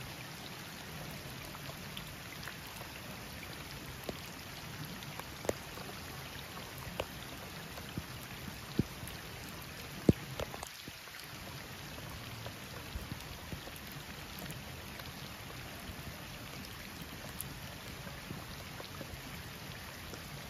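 Steady rain falling on a canal's water surface and the grass around it, an even hiss with scattered sharp taps; the loudest tap comes about halfway through.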